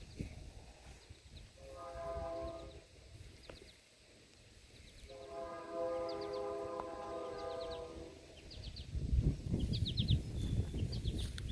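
Distant multi-chime diesel locomotive horn on a Kanawha River Railroad freight train, sounding a short blast about two seconds in and a longer blast of about three seconds starting about five seconds in, several steady tones sounding together. A low rumbling noise swells up near the end.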